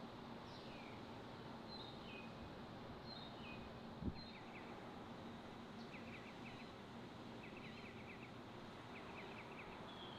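Small birds calling over a faint steady hum: short falling chirps and quick stuttering trills repeating every second or so, with a single thump about four seconds in.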